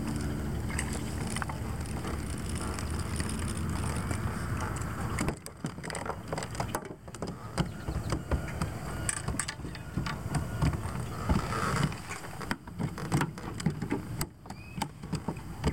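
An electric trolling motor on a small fishing boat runs with a steady low hum. About five seconds in it gives way to irregular knocks and clicks of boat handling, with wind buffeting and rushing across the microphone.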